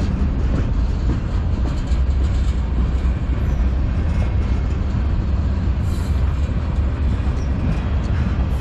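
A manifest freight train's cars rolling past, steel wheels on the rails making a steady, loud, low rumble.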